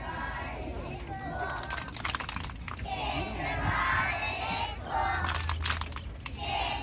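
A large group of young children's voices raised together in bursts, about three seconds in and again near the end. A few sharp crackles cut through in between.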